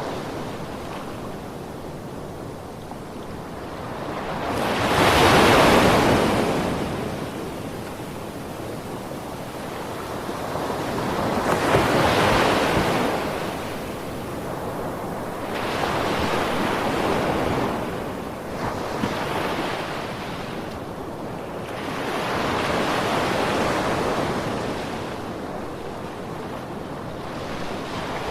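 Ocean waves washing in, a surge of surf swelling and fading about every five to six seconds over a steady hiss, the loudest about five seconds in.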